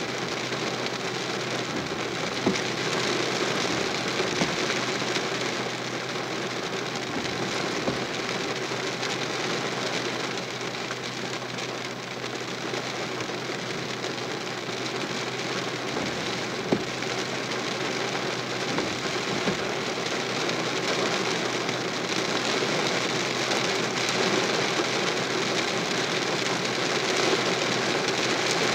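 Steady rain falling on a car's windshield and roof, heard from inside the vehicle, with a few sharper drop hits and a low steady hum underneath.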